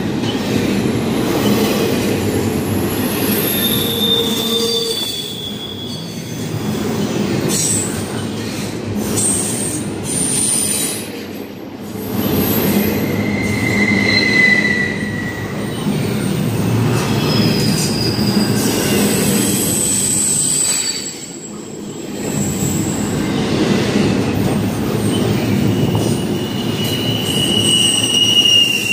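Double-stack intermodal freight cars rolling past close by: a steady rolling noise of steel wheels on rail, with high wheel squeals coming and going, some sliding in pitch.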